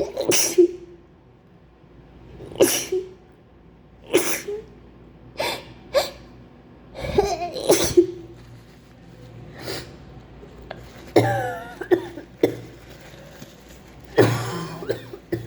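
A woman sneezing over and over in a fit: about ten short, loud sneezes, one every second or two, with a longer one near the end. The uploader puts the fit down to a bad flu.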